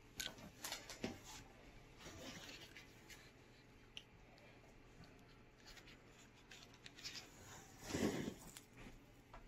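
Faint handling noise from a pair of plastic children's headphones and their cable being picked up and moved about: light clicks and rustles, with one louder bump near the end.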